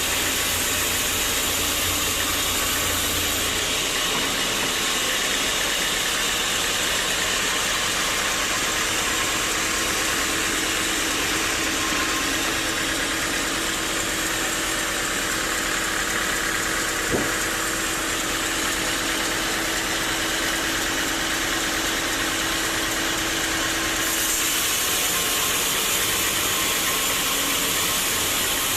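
Sawmill saw running steadily while cutting a teak log, a loud, even mechanical noise with a faint hum. A single sharp click comes about 17 seconds in, and the character of the noise shifts slightly near the start and near the end.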